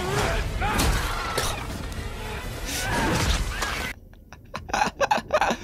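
A TV episode's action-scene audio: dense crashing and smashing effects over music. About four seconds in it cuts off sharply, and a man laughs in a quick run of short bursts.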